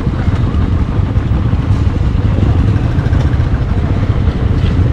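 Motorcycle engine running steadily, a dense low rumble.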